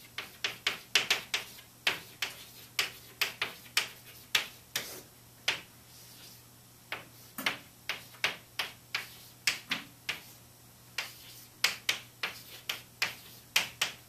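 Chalk writing on a blackboard: quick, irregular taps and short scratches as letters and numbers are written, with a pause of about a second near the middle.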